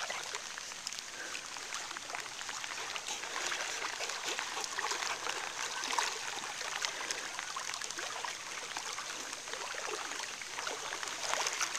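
Flowing floodwater current: a steady trickling rush of moving water, dotted with many small splashes.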